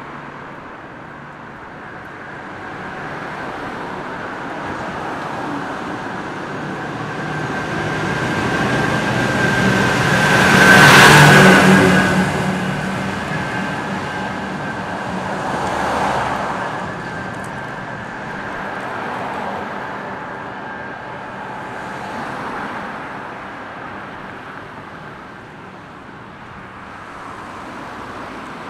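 Road traffic: a car passes close by, growing louder to a peak a little over a third of the way in and then fading away. Two fainter vehicles pass after it.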